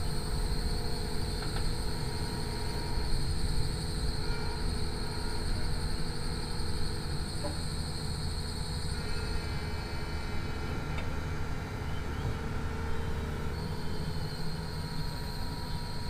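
Doosan excavator's diesel engine running steadily close by, a low rumble with a constant high whine over it.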